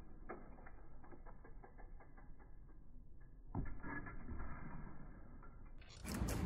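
Yeti mountain bike being handled and ridden: light mechanical clicks and rattles, with a louder rustling, clattering stretch starting about three and a half seconds in. Near the end the sound turns suddenly louder and fuller.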